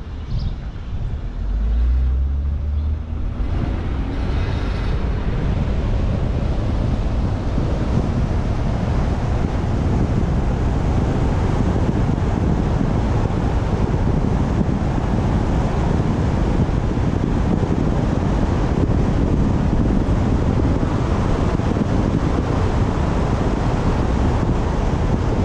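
Wind buffeting a roof-mounted action camera on a moving minivan, over road noise. A quieter stretch with a rising whine in the first few seconds gives way to a dense, steady rush as the van gets up to speed.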